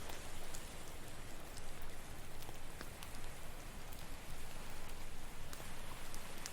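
Campfire crackling with scattered sharp pops and snaps over the steady wash of ocean waves.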